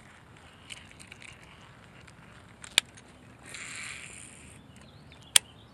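Baitcasting fishing reel at work: a sharp click, then about a second of whirring as the spool turns and line pays out, then another sharp click.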